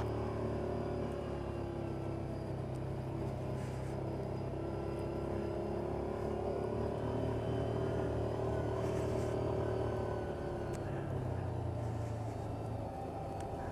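Yamaha Viking side-by-side's engine running steadily at trail-cruising speed, heard from the driver's seat inside the cab, with a constant drone that eases off slightly about ten seconds in.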